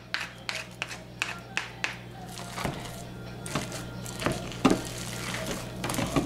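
Silicone spatula stirring and scraping thick, bubbling hot-process liquid-soap paste in a crock-pot's ceramic pot: irregular wet squelches and sharp clicks against the pot, over a steady low hum.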